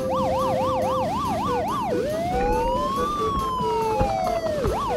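Police siren: about two seconds of a fast yelp, the pitch sweeping up and down several times a second, then one slow wail rising and falling, then the fast yelp again near the end. Light background music plays underneath.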